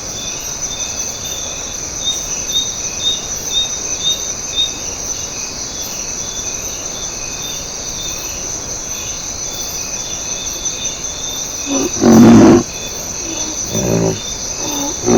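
Steady high-pitched insect chorus (crickets) trilling, with a repeated chirp over it early on. About twelve seconds in a large animal gives a loud, low call lasting under a second, followed by two weaker calls.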